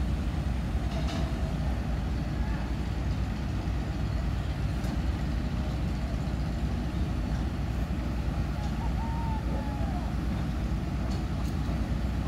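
Steady low rumble of crane diesel engines running while the cranes hold a steel bridge girder aloft.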